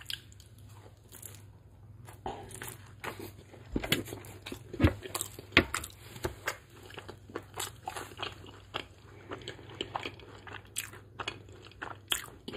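Close-miked chewing of a crispy fried egg roll: a run of short, crisp crunches and mouth sounds, loudest about five seconds in.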